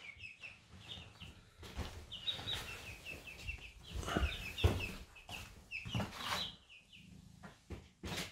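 Half-grown chicks peeping over and over, short high calls in quick runs, with a few knocks mixed in.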